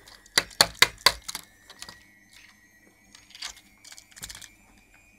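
Sharp plastic clicks and taps from a small wind-up puzzle model car being handled on a table: four loud clicks in quick succession about half a second in, then scattered lighter clicks.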